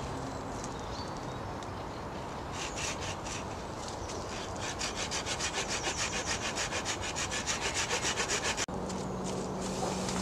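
Hand saw cutting through a wooden pole: rasping push-pull strokes that quicken and grow louder partway through, then stop abruptly, followed by a steady low hum.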